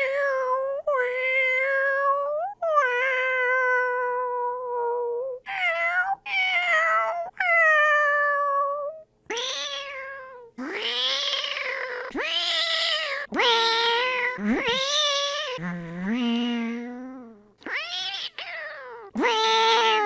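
A person imitating cats with the mouth: about a dozen drawn-out meows in a row, many sliding up or down in pitch, with one lower-pitched call about two-thirds of the way through.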